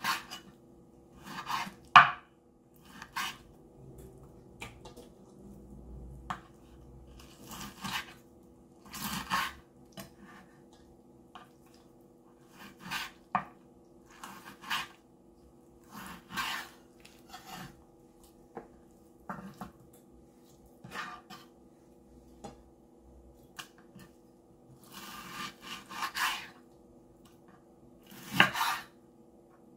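A long kitchen knife slicing through raw pork and striking a bamboo cutting board. The strokes are short and irregular, coming every second or two, with a faint steady hum underneath.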